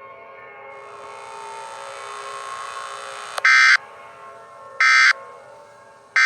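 Three short, harsh bursts of Emergency Alert System digital data tones about a second and a half apart, the end-of-message signal that closes an alert. Under them a sustained electronic drone of many steady tones runs on and stops abruptly just after the third burst.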